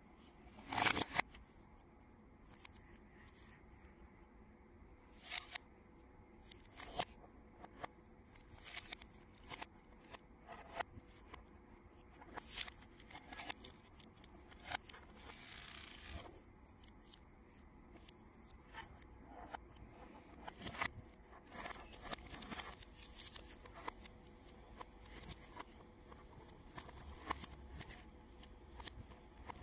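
Plastic Lego bricks and Technic parts clicking and snapping together as they are handled and pressed into place, in irregular sharp clicks, with a brief scraping about halfway through.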